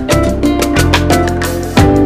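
Background music with a steady beat, plucked melody notes and low sliding bass notes.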